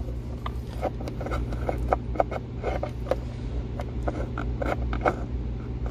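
Scattered light scraping, rustling and clicking as a cable is fed through a hole, over a steady low hum.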